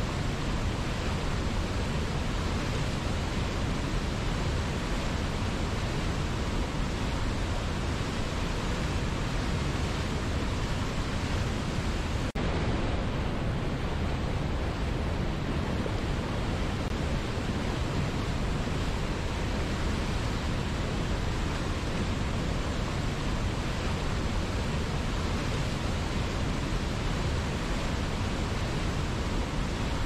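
Waterfall and whitewater rapids rushing in a steady, unbroken roar of water noise, with a momentary dip about twelve seconds in.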